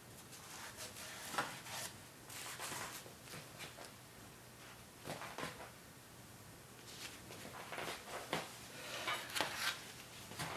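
Scattered scrapes, rubs and light knocks of hands, wooden blocks and a pry bar being worked against a run-flat tire and wheel rim on a tire changer, with a thicker run of them in the second half.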